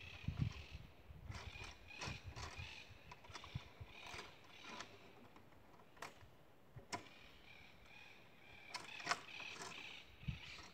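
Scattered small knocks and clicks of hands working at the metal frame and fittings of a solar panel mounted on a wooden post, with birds calling in the background.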